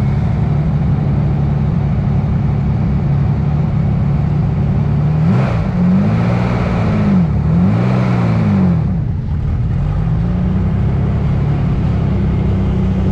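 Sand rail's engine running steadily while the buggy rolls over sand. In the middle the engine revs up and eases off a few times, its pitch rising and falling, then it settles back to a steady run.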